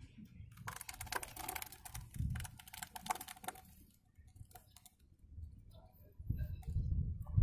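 Rapid clicking and rattling of a plastic blender jar being tipped and shaken to empty blended bait mixture into a plastic bowl, lasting a couple of seconds, then a low rumble near the end.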